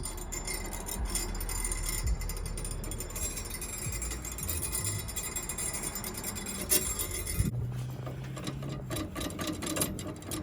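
Rapid metallic clicking and clinking of hand tools and suspension parts being worked, thinning out near the end.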